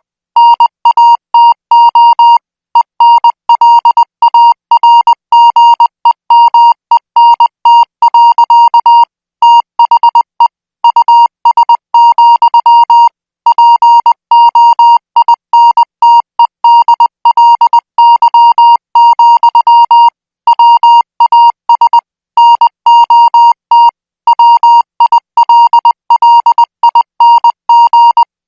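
Morse code sent as a keyed tone of about 1 kHz at 20 words per minute: quick dots and dashes run in groups, with brief pauses between them.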